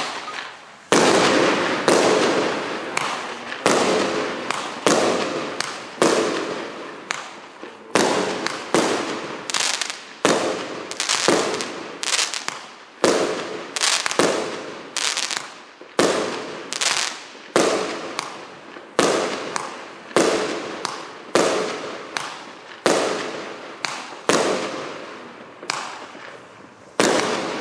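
A 36-shot 1-inch fireworks cake firing, its tubes going off one after another as a steady string of sharp bangs, a little more than one a second, each dying away quickly.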